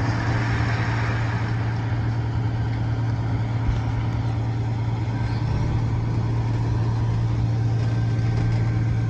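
Heavy diesel engine running steadily, a low, even hum.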